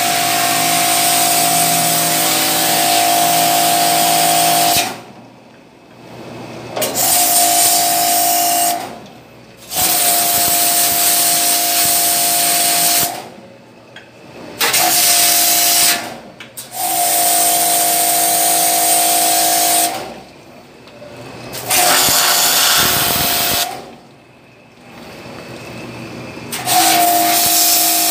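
Pressure washer spraying a high-pressure water jet onto stainless steel table legs and a tiled floor: the hiss of the jet over the pump's steady whine, cutting off and starting again about seven times as the trigger is released and squeezed.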